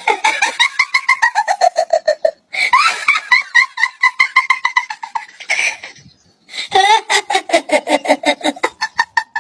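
High-pitched giggling laughter in three bouts of rapid ha-ha pulses, each bout sliding down in pitch, with short breaks about two and a half seconds in and again around six seconds.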